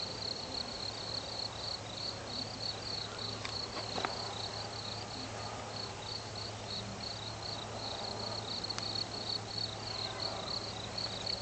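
Crickets chirping, a high chirp repeating evenly several times a second, over a faint low steady hum.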